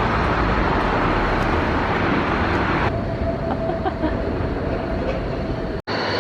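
Steady rumbling noise of a moving vehicle, heavy in the low end. About three seconds in the sound changes and turns duller, with a faint steady hum.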